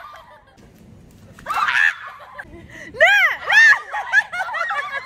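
Girls shrieking and laughing in high, rising-and-falling squeals. The voices start about a second and a half in and are loudest around three seconds in.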